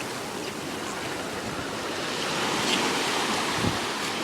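Ocean surf washing onto the beach: a steady rush of breaking waves that swells about two seconds in.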